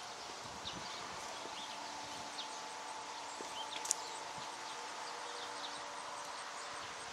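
Outdoor farm ambience: a steady, even background noise with faint, short, high chirps of small birds scattered throughout, and a single sharp click about four seconds in.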